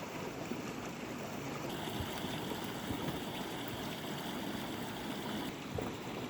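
Mountain stream running steadily, a constant rush of flowing water.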